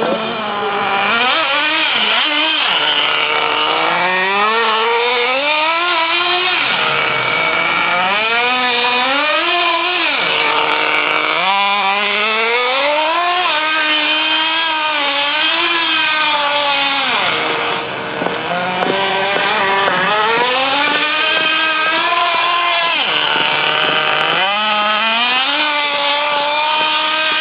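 Radio-controlled model car's small engine revving up and down over and over, its pitch rising and falling every second or two as the car is driven.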